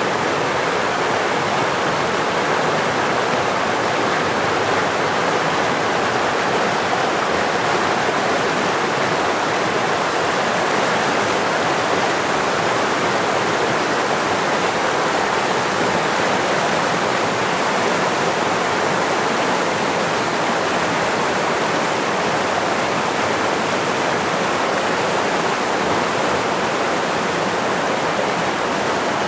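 A loud, steady rushing noise, even like flowing water, with no rhythm, clicks or pitched tones.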